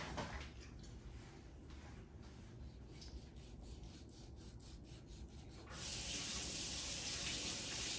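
Long knife sawing slices off a roasted beef eye round on a plastic cutting board: faint, repeated rubbing strokes. About six seconds in, a steady hiss comes in, louder than the slicing.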